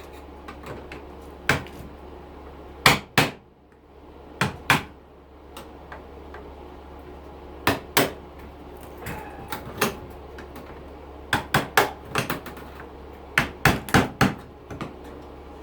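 Hammer blows knocking on a dishwasher being taken apart: sharp strikes, some single and some in quick groups of two to four, at irregular intervals.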